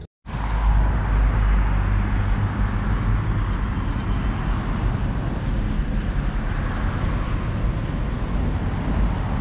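Steady outdoor background noise of road traffic: a strong low rumble under a broad hiss. It cuts in abruptly after a moment of silence at the very start.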